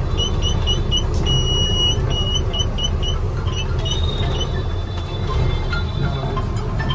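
Goods truck's engine running steadily, heard from inside the cab while driving slowly. During the first two and a half seconds a quick series of short high beeps sounds, about four a second, with one held longer.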